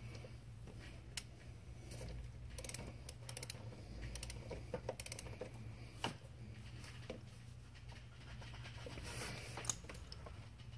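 Scattered light metallic clicks of a torque wrench ratchet and hand tools as the new clutched alternator pulley's nut is tightened, over a steady low hum.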